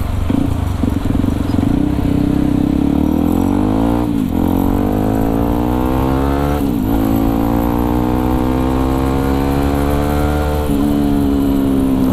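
Yamaha WR155R supermoto's single-cylinder engine accelerating up through the gears. The revs rise, dip sharply at two upshifts about four and seven seconds in, climb again, and then hold steady near the end.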